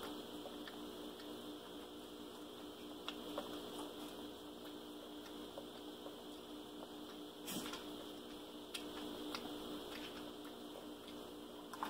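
Scattered soft wet clicks and smacks as a Java macaque licks milk off her fingers, with a sharper knock about seven and a half seconds in, over a steady low hum.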